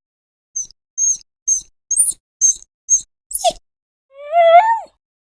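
A run of seven short, very high squeaks about half a second apart, then near the end a dog's whining call that rises in pitch and lasts under a second.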